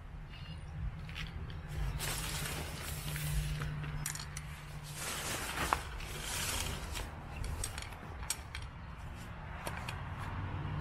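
Nylon tent fabric rustling in surges as it is pulled and folded over pavement, with scattered light clicks and clinks.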